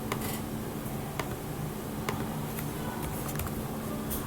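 A few light, irregular clicks of a computer keyboard being typed on, over a steady low hum.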